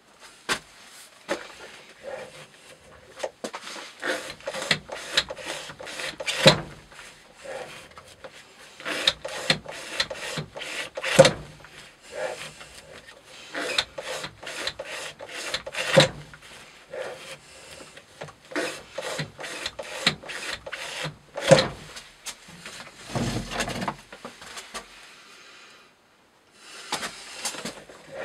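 Knife blade cutting through thick fibre rope in a manual cutting-test rig: scratchy rubbing as the rope is pulled through the holder, with clicks and knocks from the rig's arm. The loudest clacks come about every five seconds.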